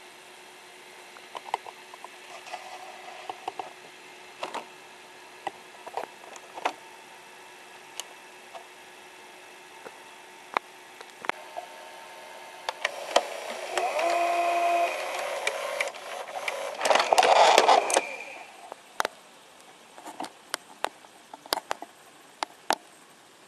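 Mechanism of an opened 1984 Panasonic NV-810EG-type VHS video recorder running, with the head drum spinning. Scattered sharp clicks sound over a faint steady hum. About halfway through comes a louder whirring with a steady whine, followed by a brief loud noisy burst and more clicks.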